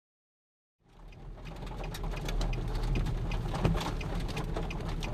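A vehicle's engine idling as a steady low hum, with irregular light ticks and taps over it. The sound fades in about a second in.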